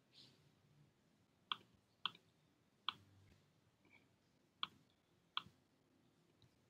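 Five sharp computer mouse clicks, unevenly spaced over a few seconds, with near silence between them.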